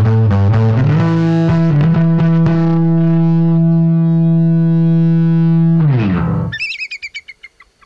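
Distorted electric bass guitar through an Orange bass amp: a quick run of notes, then one long held note that slides down in pitch and cuts off about six and a half seconds in. A quick string of short, high bird chirps follows.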